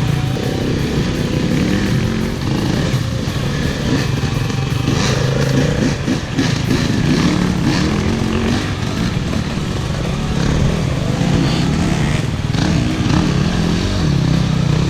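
Single-cylinder dirt bike engine running and revving up and down as it is ridden over rough bush trail, with a few sharp knocks.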